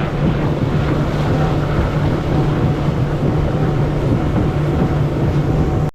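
Boat motor running steadily under way, a constant low hum with rushing wind and water noise over it, cut off suddenly at the very end.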